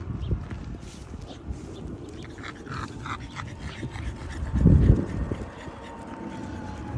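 Small dogs on a walk making brief sounds, a short cluster of them about two and a half to three seconds in. About two-thirds of the way through comes a short low rush of noise, the loudest moment.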